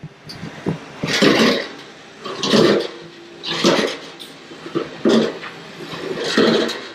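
A steel beer keg being lowered step by step down a metal diamond-plate staircase: five heavy metallic bumps with a short clank and scrape, about one every second and a bit.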